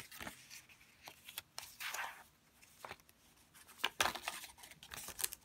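Paper pages of a handmade junk journal being turned by hand: soft rustles and flaps of paper, with a swishing page turn about two seconds in and a louder cluster of rustling about four seconds in.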